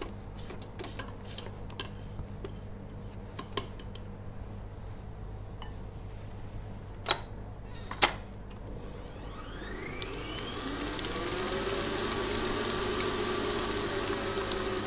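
Light clinks and knocks while the stand mixer's steel bowl is scraped down, with two sharper clicks about seven and eight seconds in. About ten seconds in, the stand mixer's motor starts, its whine rising as it speeds up, then runs steadily, beating cake batter of creamed butter, sugar and eggs.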